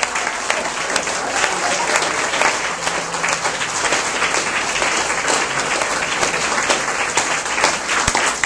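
Audience applauding steadily, a dense patter of many hands clapping at the close of a speech.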